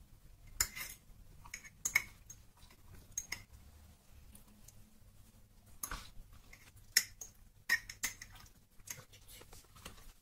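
Metal fork clinking and tapping against a glass jar while soft red peppers are pushed down into it: irregular sharp clicks a second or so apart.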